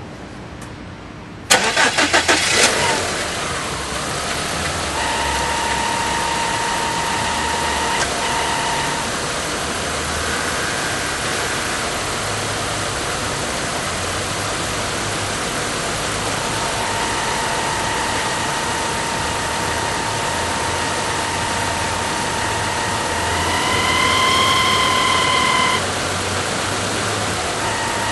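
VW Passat V5 engine cranked by the starter and catching about a second and a half in, then idling. Over the idle a high whine from the pulley area comes and goes, rising briefly in pitch and growing louder near the end: the abnormal pulley noise, back about three months after the pulley was replaced.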